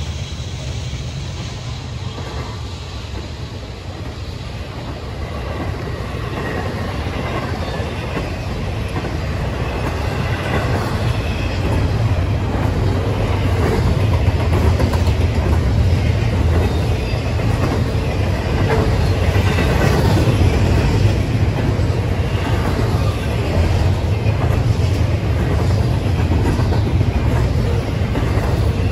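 A train rolling past: a steady rumble of wheels on rail with faint clicking, growing louder over the first dozen seconds and then holding steady.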